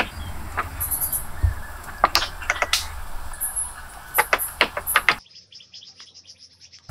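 Sharp wooden knocks and taps as a hatchet and wooden poles strike the cabin frame, several in quick succession about four seconds in, with small birds chirping throughout. The knocking stops about five seconds in, leaving a quieter stretch of bird chirps.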